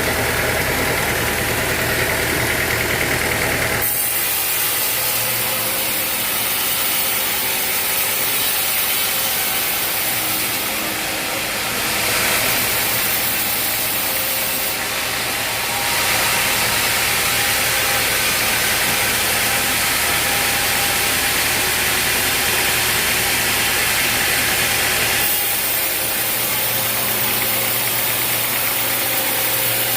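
Sawmill engine running steadily, its tone changing abruptly about four seconds in and again several times later.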